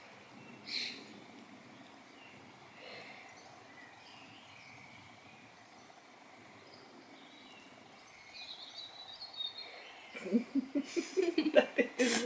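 Faint outdoor background with a brief bird chirp about eight seconds in. In the last two seconds, a louder run of quick, irregular sounds.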